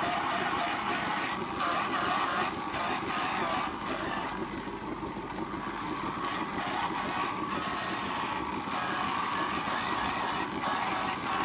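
Handheld electric teat-cleaning brush running as it scrubs and washes cows' teats, a steady mechanical whir with spraying water.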